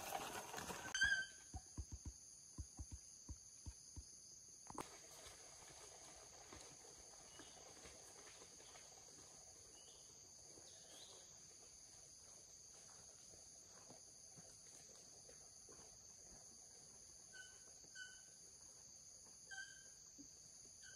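Quiet forest ambience: a steady high-pitched insect drone, with a few short chirps near the start and near the end. A run of low thuds comes near the start.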